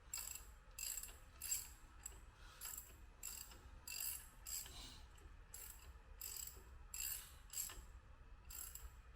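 Hand ratchet wrench clicking in short, regular back-and-forth strokes, about one and a half a second, as a bolt is run in.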